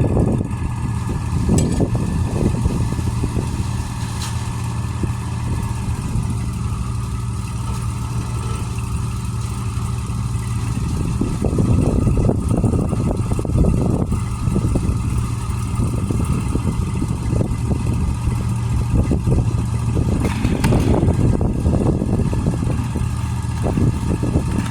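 A woodworking machine's motor running steadily, with rougher, louder stretches three times, as if under load.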